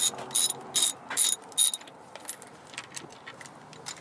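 Hand ratchet wrench clicking in short strokes, about five in the first two seconds, then only faint scattered ticks.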